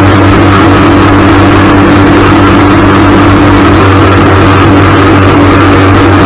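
Ultralight trike's engine and pusher propeller running steadily in cruising flight, loud and unchanging, with wind rushing over the microphone.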